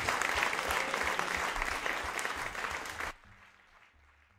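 Audience applauding in a small club: dense, steady clapping that cuts off abruptly about three seconds in, leaving a faint low hum that fades out.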